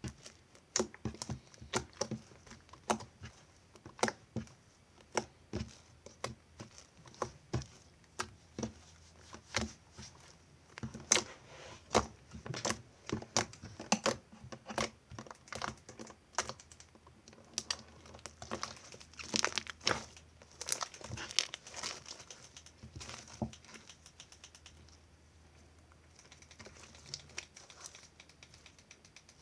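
Slime being squeezed and stretched by hand, making irregular sharp clicks and crackling pops, thinning out near the end.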